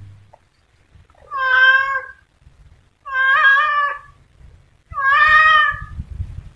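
Domestic cat giving three long meows, each lasting about a second, with short pauses between them.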